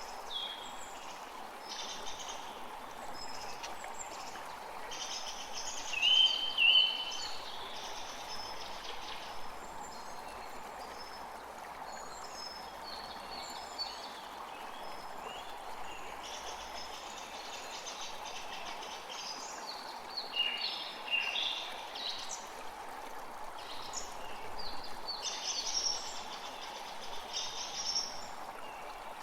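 Forest creek running steadily, with many birds chirping and singing over it; a few louder chirps stand out about six seconds in and again later.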